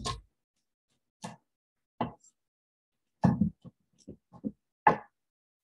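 Kitchen knife chopping basil leaves on a wooden cutting board. About nine irregular knocks, spaced out at first, then coming closer together in the second half.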